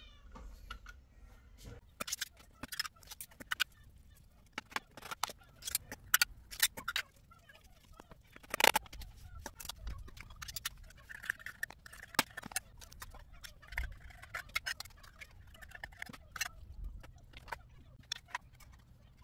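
Wet cat food cans and a metal spoon clinking and tapping against stacked plastic plates as food is dished out: a run of sharp clicks and knocks, the loudest a little before halfway.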